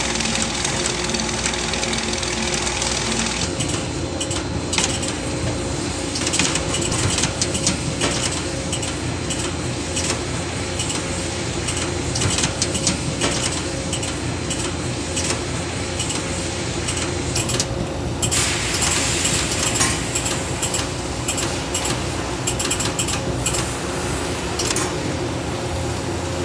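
AccuVision 360 potato grading machine running: a steady mechanical hum under a dense, rapid clatter of potatoes and rollers knocking on the metal rod conveyor.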